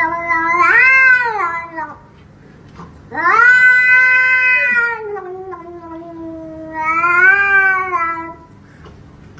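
A grey cat yowling at a hand reaching toward it: two long, drawn-out calls. The first ends about two seconds in; the second starts a second later, sinks low and drawls on, then swells again before trailing off near the end.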